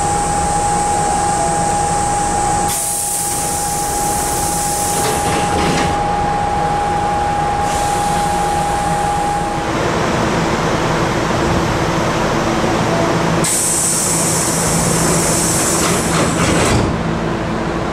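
Pneumatic doors of a Nose Electric Railway 5100 series commuter car closing: long hisses of air from the door engines over the steady running noise of the stopped train, with a steady high whine that stops about ten seconds in. Later another long air hiss comes as a second car's doors move.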